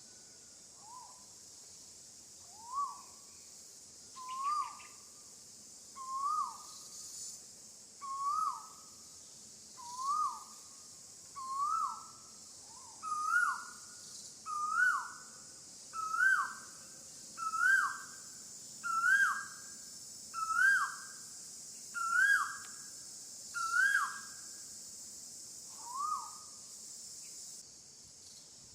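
An animal calling in a long regular series, about sixteen short notes roughly every one and a half seconds, each rising then dropping sharply. The notes climb in pitch and get louder through the series, then stop. A steady high insect hiss runs underneath.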